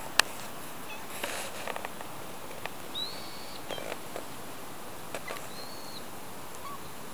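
Steady outdoor hiss with scattered rustling and crunching of footsteps on a snowy, leaf-strewn path, and a sharp click just after the start. Two short high-pitched calls a few seconds apart, each sliding up and then holding.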